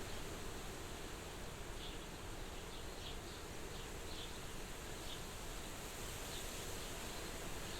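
Soft, steady wind at a farmhouse window, with a few faint, short, high chirps scattered through it.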